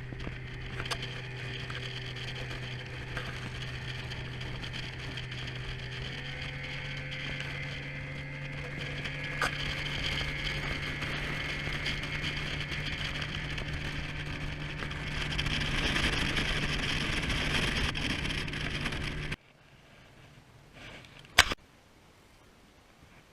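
Engine running steadily with an even hum, rising slightly in pitch about six seconds in and growing louder, then cutting off suddenly near the end. A single sharp click follows.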